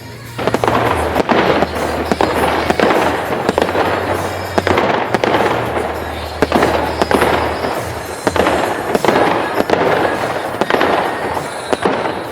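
Aerial fireworks display: dense bangs and crackling that come in repeated waves. Low music bass plays under the first half.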